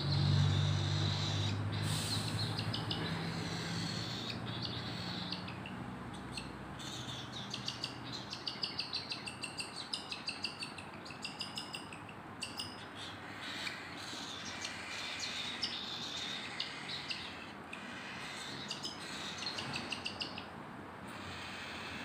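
Baby cockatiels giving food-begging calls while being syringe-fed by hand: quick runs of high chirps, about three or four a second, with a low hum over the first few seconds.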